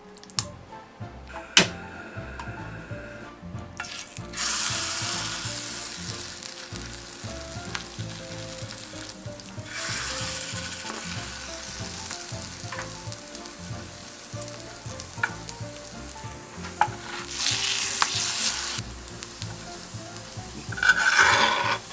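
Food frying in cooking oil in a pan. The sizzle starts about four seconds in and swells louder a few times. A single sharp knock comes near the start.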